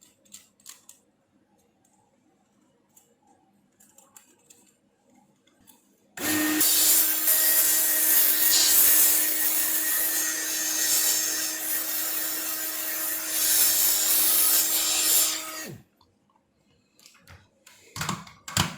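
Hot-air rework tool blowing steadily for about ten seconds, heating the solder to free a charging port from a circuit board. It is a loud hiss with a steady hum, starts about six seconds in and cuts off suddenly near the end, with light handling clicks before it.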